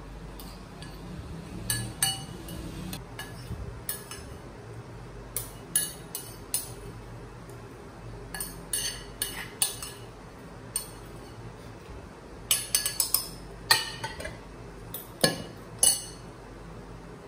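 Metal spoon and fork clinking and scraping against ceramic bowls and a plate while eating, in irregular clusters of sharp clinks, the loudest ones near the end.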